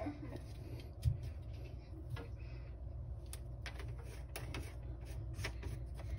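Scattered light clicks and knocks of plastic as hands work the slip nuts of a sink's white plastic P-trap, with a sharper knock about a second in, over a steady low hum.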